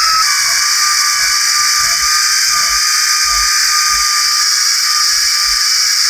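Handheld electric power tool running at steady high speed; its whine drops slightly in pitch just after the start, as it takes load.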